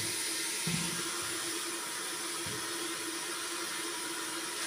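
Steady sizzling hiss of onions frying in olive oil in an electric multicooker on its sauté program, with a few soft knocks as frozen chicken thighs are handled and pulled apart.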